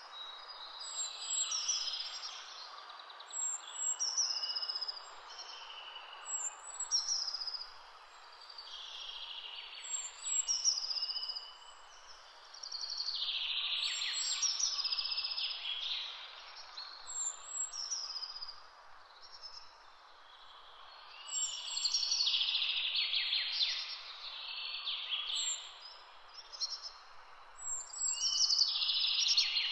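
Several small songbirds singing, one repeating a short high note every couple of seconds among varied warbling phrases, over a steady low hiss of background noise.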